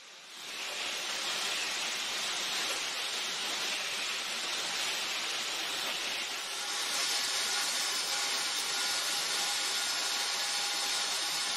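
Pet food production line machinery running: a steady hissing mechanical noise with a faint hum, louder from about six and a half seconds in.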